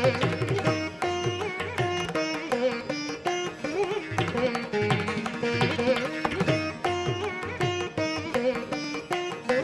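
Instrumental background music in an Indian classical style: plucked-string melody over a steady hand-drum rhythm.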